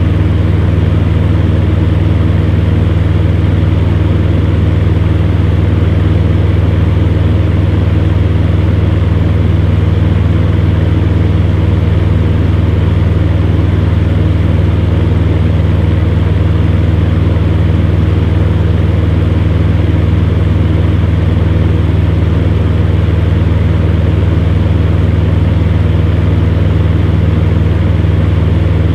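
Electric fan running steadily: a constant low motor hum under an even rush of moving air.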